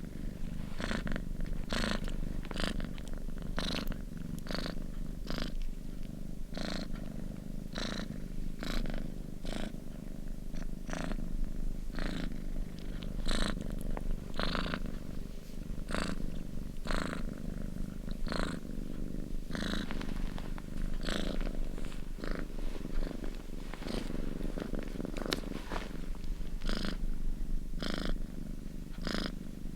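Domestic cat purring steadily as a low rumble, with a short rasp repeating about every two-thirds of a second.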